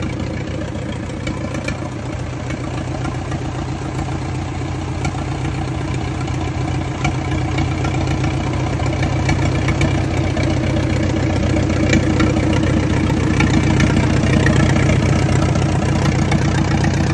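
The 1953 International TD-6 bulldozer's four-cylinder diesel engine running at a steady idle after years of sitting, getting slightly louder over the second half.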